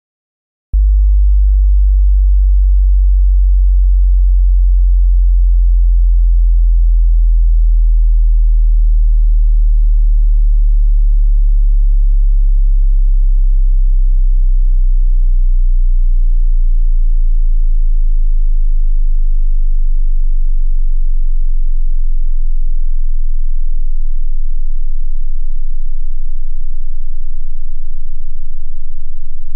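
A loud, pure sine test tone for checking headphone bass extension: a very deep bass tone that starts about a second in and slowly sinks lower in pitch.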